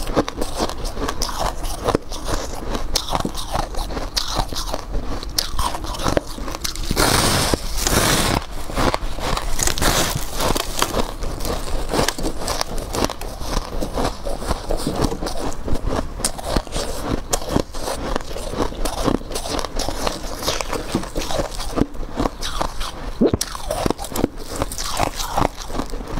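Close-miked biting and chewing of refrozen freezer frost chunks: dense, crisp crunching and crackling throughout, with a louder stretch about seven seconds in.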